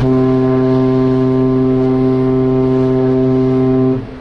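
Ferry's ship horn sounding one long, steady blast of about four seconds that cuts off sharply. It is a greeting signal between two passing ferries.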